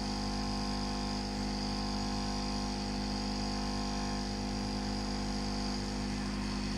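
Steady hum of a small electric fan motor, several even tones over a faint hiss, unchanged throughout.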